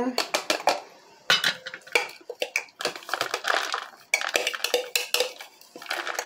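A fork scraping and tapping against the inside of a plastic food processor bowl, knocking chopped vegetables out into a plastic container: a quick, irregular run of clicks and short scrapes.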